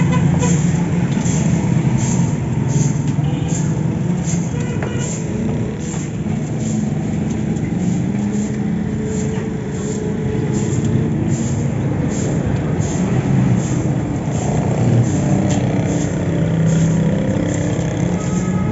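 A steady low engine-like rumble, with a cleaver chopping raw chicken on a wooden block in short strokes about twice a second.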